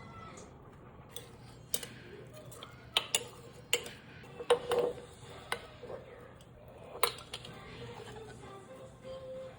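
Kitchen clatter: about ten sharp, irregularly spaced clinks and knocks of utensils against dishes, the loudest a little before the middle.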